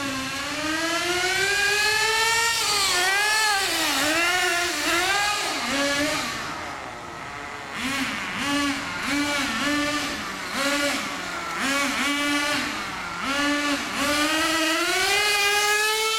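The motor of a 1/10-scale RC car revving as it is driven, a pitched whine that rises and falls with the throttle. The middle holds a quick run of short throttle blips, and near the end the pitch climbs steadily in one long rise as the car speeds up.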